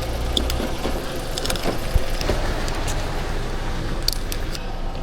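A car engine idling, a steady low rumble, with scattered small clicks and metallic knocks throughout.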